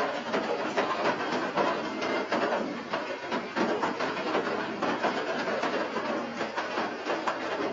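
Steady rain falling, a dense, even patter of many small drop impacts.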